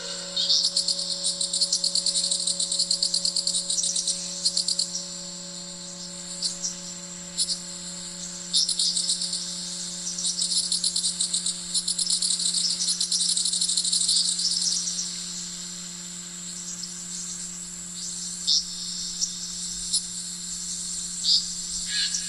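High, fast chirring trills like insects, coming and going in stretches, over a steady low held drone: an ambient music track.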